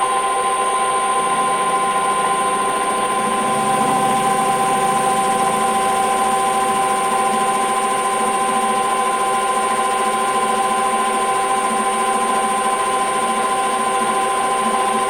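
Metal lathe taking a 0.3 mm cut, the cutting tool chattering with a steady ringing of several fixed tones over the machine's running noise.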